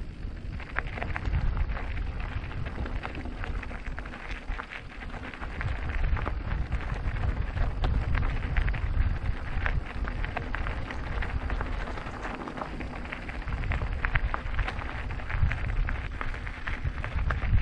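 Riding noise from a mountain bike on the move: a low wind rumble on the microphone with a constant fine crackle of the tyres rolling over a rough surface, swelling and easing every few seconds.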